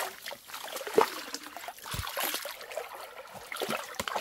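Shallow stream water splashing and sloshing around a person wading in rubber boots, with a few knocks, the sharpest about a second in.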